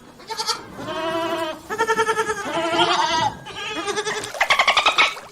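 Goats bleating: a run of several calls, the last one near the end louder and quavering rapidly.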